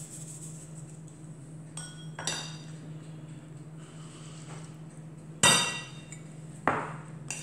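Metal spoon and sieve clinking against a glass mixing bowl: about five sharp ringing clinks, the loudest about five and a half seconds in.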